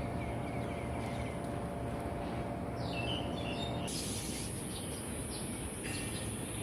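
Wild birds chirping: a quick run of short repeated notes in the first two seconds, then a few higher chirps about three seconds in, over a steady high whine.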